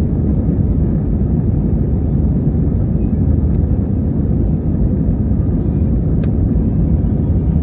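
Commercial airliner running, a steady low rumble, with two faint clicks partway through.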